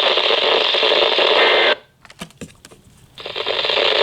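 Static hiss from a NOAA weather radio receiver's speaker. It cuts out abruptly just under two seconds in, leaving a few clicks, and comes back about a second and a half later.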